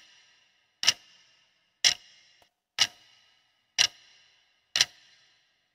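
Clock-tick sound effect counting down the answer time, one sharp tick a second with a short ring after each.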